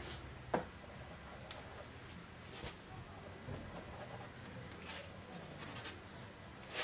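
Faint scattered scratches and light taps of a paintbrush working oil paint on a palette and canvas, with a sharper click about half a second in and another near the end.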